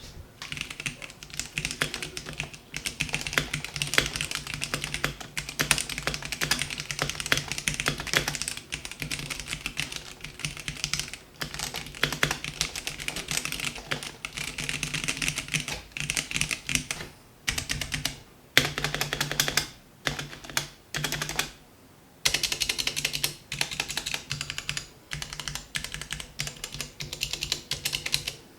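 Continuous fast typing on a Gamakay K66 compact mechanical keyboard with hot-swappable Gateron linear switches: a dense run of key clicks and bottom-outs with little rattle, pausing briefly a few times.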